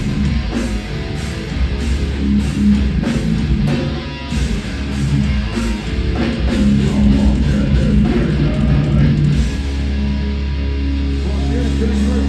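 Live heavy metal band heard from within the crowd: distorted electric guitars, bass and drum kit hammering out accented chords. From about ten seconds in, a final chord is held, ringing out steadily with no drum hits.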